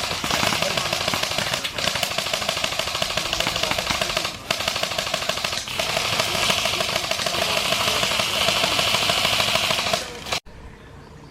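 Airsoft electric gun firing full-auto in long sustained bursts, a fast, even rattle. It pauses twice briefly near the middle and cuts off abruptly near the end.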